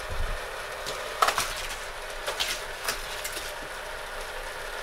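Hot Wheels die-cast car and plastic boulders clattering on plastic toy track: a soft thump at the start, then a scattering of sharp clicks and clacks, the loudest about a second in.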